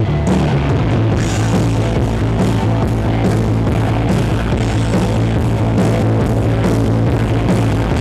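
Loud rock music with drums, bass and guitar playing over a PA system, with a steady beat.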